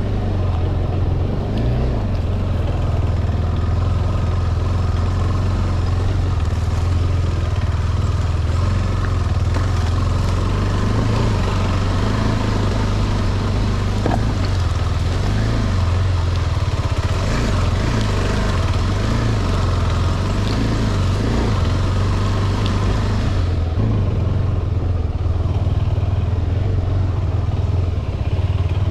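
KTM 390 Adventure's single-cylinder engine running steadily while the motorcycle is ridden off-road, with a constant noisy rush over it.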